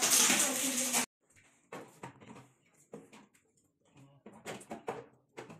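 Protective plastic film being peeled off a new refrigerator, a loud continuous rustling that cuts off abruptly about a second in. After that come faint handling knocks and low, indistinct voices.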